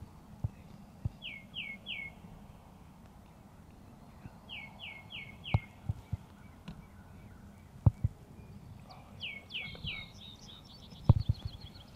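Songbirds calling, with short phrases of three or four quick falling notes repeated every few seconds and a fast high trill near the end. A few short low thumps come in between, the loudest about eleven seconds in.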